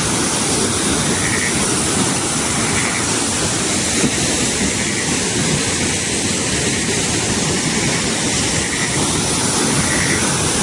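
Steady, loud rush of Changey Falls, a large monsoon-swollen waterfall, heard close up. A faint short high note recurs every second or two above it.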